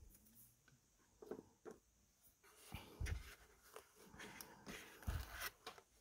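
Faint handling noises of fingers scraping and rubbing as a cased trading card is worked out of a foam slot in a cardboard box, with two dull thumps about three seconds in and about five seconds in.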